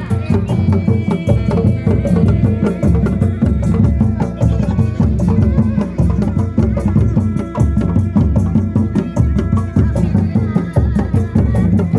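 Traditional West Javanese kuda lumping ensemble playing: fast, steady drumming with a sustained melody line above it.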